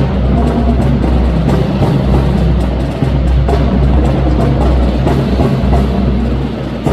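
Loud music with drums and a steady, heavy bass line.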